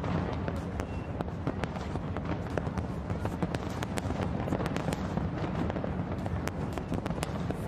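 Fireworks display: aerial shells bursting in a rapid, irregular run of sharp bangs and crackles over a continuous rumble of further explosions.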